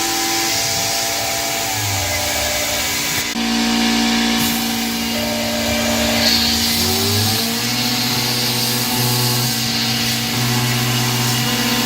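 CNC-converted PM-25 benchtop milling machine running a programme: the spindle and the stepper-driven axes give held tones that step to new pitches as the feeds change, with a short rising whine as an axis speeds up, over the hiss of mist coolant. About three seconds in the sound changes abruptly as the 3/8" chamfer pass begins at 30 IPM.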